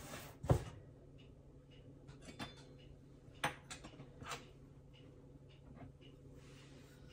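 A few short knocks and clicks of kitchen containers being handled on the counter as the sugar is fetched, the loudest about half a second in and smaller ones over the next few seconds.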